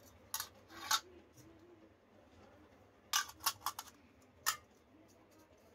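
Thin aluminium miniature toy dishes clinking and tapping against each other as they are handled and set down. There are two clinks within the first second, a quick run of four about three seconds in, and one more a second later.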